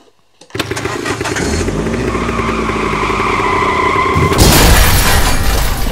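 Dubbed-in action-movie sound effects: a loud rumble with a few held tones over it, then a big explosion boom about four and a half seconds in that dies away slowly.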